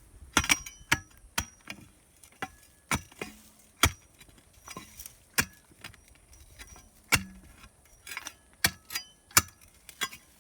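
Metal digging tool striking stone again and again while prying out a rock that blocks a plant root. The strikes come as irregular sharp clinks, about two a second, some with a brief metallic ring.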